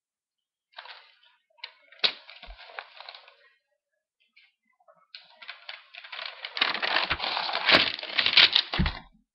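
A sheet of paper rustling and crackling close to the microphone in two stretches: a short one about a second in, and a longer, louder one from about five seconds in until near the end.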